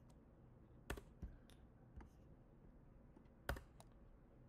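A few faint, scattered keystrokes on a computer keyboard, about six clicks with uneven gaps between them.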